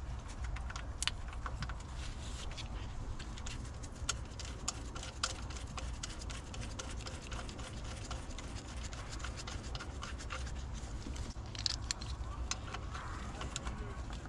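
Hand-fitting a new serpentine-belt idler pulley and its bolt onto an engine's mounting boss: irregular small metallic clicks, taps and scrapes of the pulley, bolt and socket tools being handled, with a cluster of clicks about twelve seconds in.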